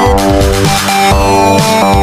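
Background music: an electronic track with sustained synth chords over a heavy, repeating bass beat.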